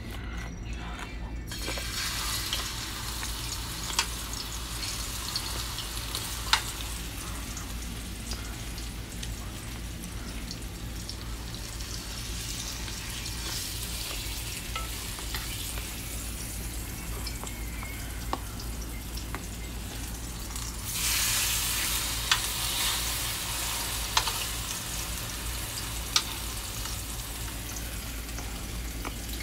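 Floured pork chops frying in hot olive oil in a pan: a steady sizzle that sets in about a second and a half in, with scattered sharp pops of spattering oil. The sizzle swells louder for a couple of seconds about two-thirds of the way through.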